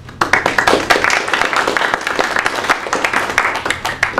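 Audience applauding, a dense patter of many hands clapping that starts right away and is cut off abruptly near the end.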